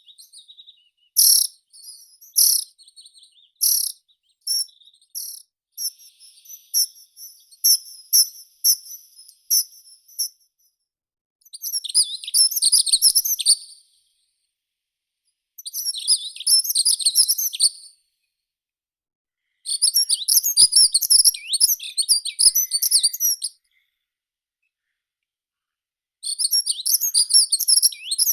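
Meadow songbirds singing: a run of short, sharp high notes repeated for about the first ten seconds, then four phrases of rapid, high twittering song, each a few seconds long, separated by pauses.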